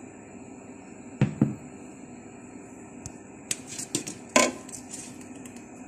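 A ladle knocking and clinking against the pot as it is stirred through sugar syrup: a few scattered knocks, the loudest about four and a half seconds in.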